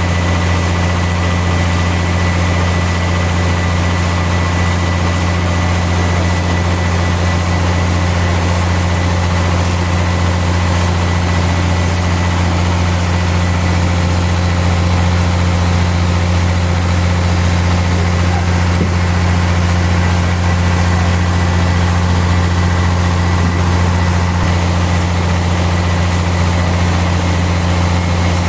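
Sawmill machinery running steadily: a deep, even engine hum with a faint high whine, unchanging in pitch and loudness, with no cut starting or stopping.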